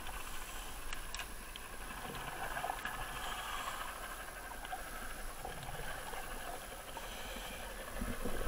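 Steady underwater hiss heard through an action camera's waterproof housing, with a couple of faint clicks about a second in.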